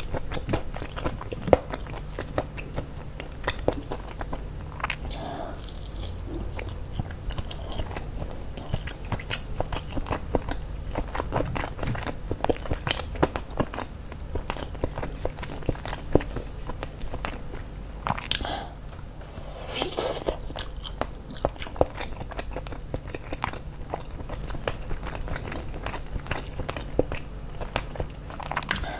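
Eating sounds: chewing and crunching mouthfuls of crispy smashed fried chicken (ayam geprek) with rice, eaten by hand, as a dense run of small crackles and wet mouth clicks over a low steady hum.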